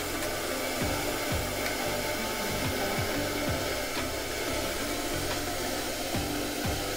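Glassblowing bench torch burning with a steady hiss as glass is heated in its flame.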